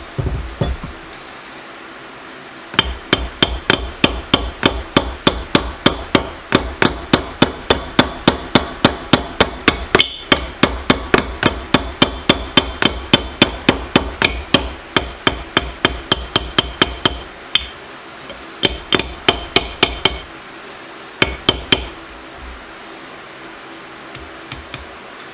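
Hammer driving a greased steel retaining pin back into a vintage Yost bench vise. The strikes are sharp and ringing, metal on metal, at a steady three to four a second. There is a short break, then another run of blows, and a last few strikes near the end.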